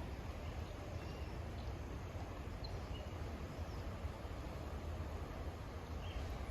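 Riverside park ambience: a steady low rumble with a few faint, short bird chirps scattered through it.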